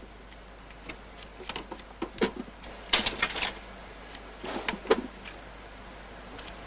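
Button mushrooms being harvested by hand: irregular clicks, snaps and light knocks as they are broken off the beds and put into a plastic crate, busiest about three seconds in and again a second and a half later.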